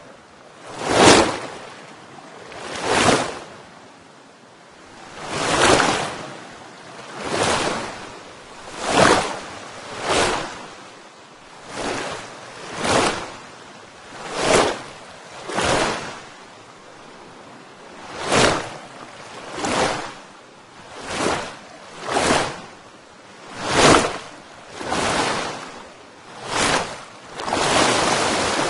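Rushing water in repeated surges, each swelling and fading within about a second, one every second or two over a steady background hiss.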